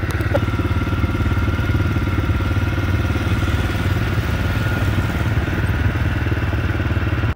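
Kawasaki Vulcan S 650 parallel-twin motorcycle engine running at a steady speed, with no revving.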